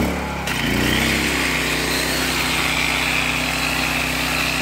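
Portable generator engine just started, speeding up and settling into a steady run. About half a second in, a steady high grinding joins it: an electric rail grinder's wheel grinding a thermite weld flush with the rail head, the last finishing step of the weld.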